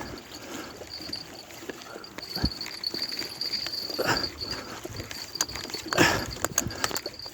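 An angler's heavy breathing while reeling in a big fish: strong, hard exhalations about four and six seconds in, with faint small clicks between. He is badly out of breath.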